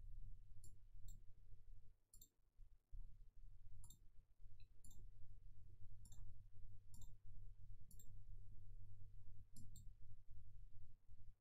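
Faint, sharp clicks at irregular spacing, roughly one a second, over a steady low electrical hum.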